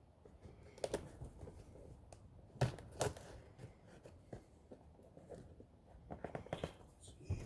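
Cardboard box being opened and handled: scattered light taps, clicks and rustles of cardboard and packaging.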